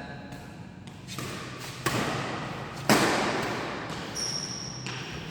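Two sharp smacks about a second apart, the second louder, each ringing out with a long echo as in a large hall, followed by a brief high squeak.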